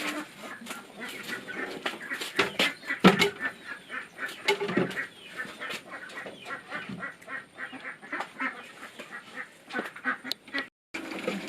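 A flock of ducks quacking, many short calls overlapping in a dense chatter.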